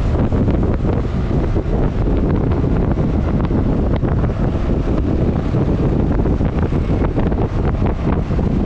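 Steady wind rushing over the microphone of a camera on a moving motor scooter at road speed, with the vehicle's running noise blended underneath.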